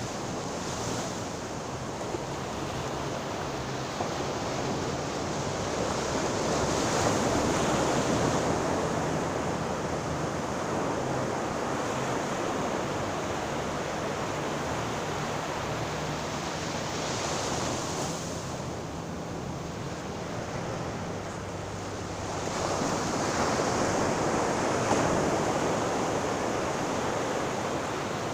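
Sea waves breaking and washing in a steady rush, swelling louder twice, about a quarter of the way in and again near the end.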